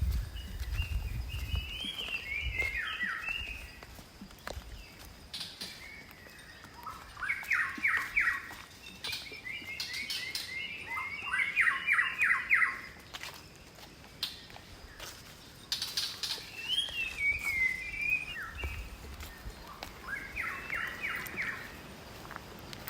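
A songbird singing in the forest, several phrases of whistled, gliding notes and quick runs of repeated notes, with short pauses between them.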